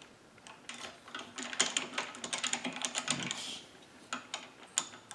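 Rapid light clicks and taps of wood and metal as a wood block is fitted against a chainsaw cylinder on a mini lathe and the tailstock handwheel is turned. The clicking is dense for about three seconds, then thins to a few scattered clicks. The lathe is not running.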